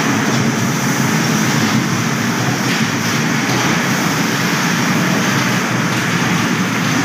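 Small electric kiddie-ride train cars running around a circular steel track: a steady rolling rumble of their motors and wheels.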